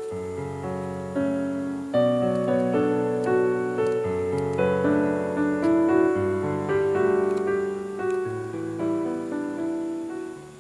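Background piano music: a gentle melody over a bass line, fading out near the end.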